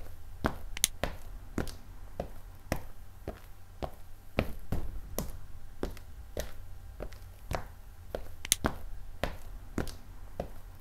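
Irregular sharp clicks and taps, two or three a second, over a steady low rumble.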